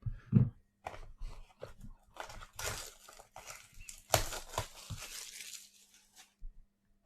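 Packaging of a sealed trading-card box being torn open and handled: a run of tearing and crinkling strokes, with a thump just after the start and a longer tearing sound about four seconds in.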